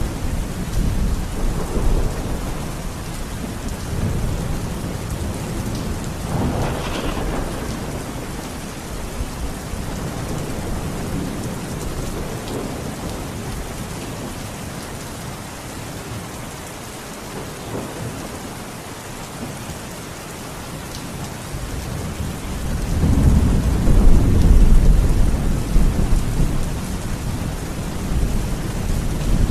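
Steady heavy rain with rolling thunder: a sharper thunder roll about six seconds in, and a loud, long low rumble of thunder building about three-quarters of the way through.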